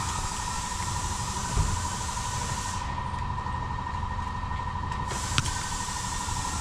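Steady mechanical hum and hiss with a constant whine, broken by two brief knocks, about a second and a half in and near the end.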